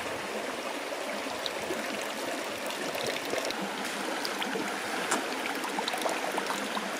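Small stream running steadily over stones, with water trickling and splashing as it is scooped into a homemade plastic-bottle filter and runs out of the cap back into the stream; a scatter of small splashes from about three seconds in.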